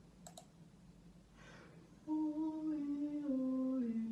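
A man's voice humming a slow line of held notes that steps down in pitch, starting about two seconds in after a quiet stretch with a small click.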